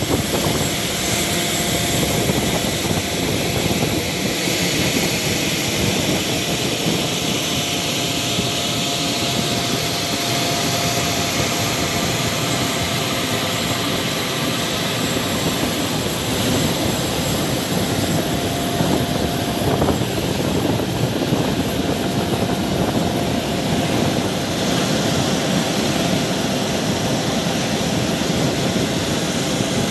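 Steady jet turbine noise from a parked Airbus A330 MRTT: a continuous high whine over a loud, even rush that holds without change in pitch.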